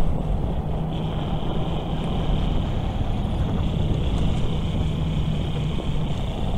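Wind and road noise picked up by a helmet-mounted microphone while riding a Super Soco TC Wanderer electric motorcycle at about 25 km/h, with a steady low hum underneath.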